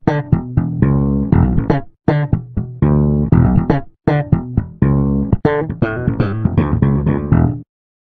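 Background music of quick plucked string notes over a bass line, which stops abruptly near the end.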